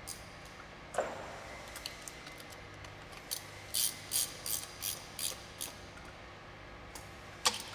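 Hand ratchet wrench tightening bolts on an engine, clicking through a run of about seven quick strokes, roughly three a second. A sharp metallic knock sounds about a second in and another near the end.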